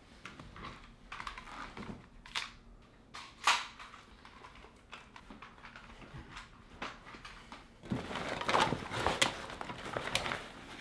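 Handling noises from objects being picked up and worked by hand: a couple of sharp clicks, then from about eight seconds in a busier stretch of rustling and crinkling with repeated clicks.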